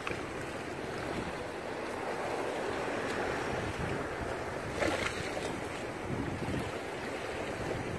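Steady rush of surf, with wind buffeting the microphone; a brief knock about five seconds in.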